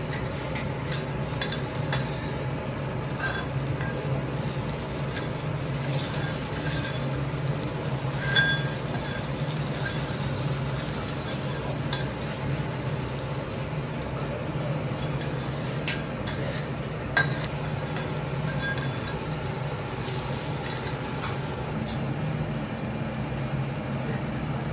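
Wagyu steak sizzling in its rendering fat on a flat-top teppanyaki griddle: a steady crackling sizzle over a low, even hum. Two sharp clicks stand out partway through.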